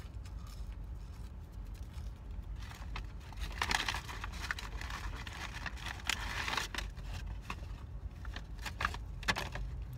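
Close-up eating noises of a person chewing french fries, with a stretch of paper rustling in the middle and a few sharp ticks near the end, over a low steady hum inside a car.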